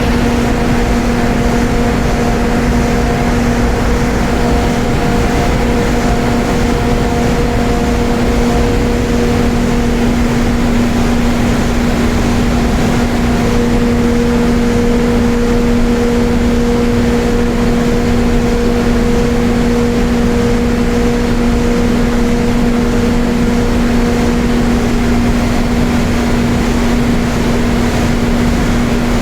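Ship's engine-room machinery running with a loud, steady noise, under a steady low hum and higher tones that fade out and come back.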